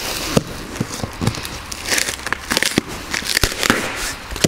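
Plastic and paper crinkling and tearing: the packing-list pouch on a cardboard parts box is torn open and the invoice pulled out, with irregular sharp crackles throughout.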